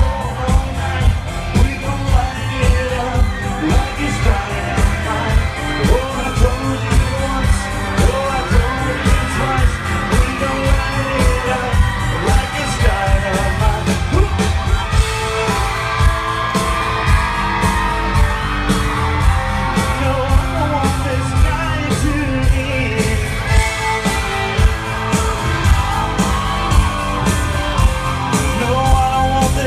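Live country band and singer performing in concert: loud amplified music with a steady driving beat and a sung lead vocal throughout.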